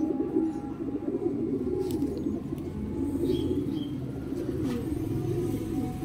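Domestic pigeons cooing steadily, with a couple of faint clicks.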